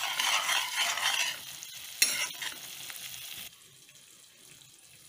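Onion-and-spice gravy frying and sizzling in a non-stick kadai while a ladle stirs it. There is a sharp louder moment about two seconds in, and the sound cuts off suddenly about three and a half seconds in.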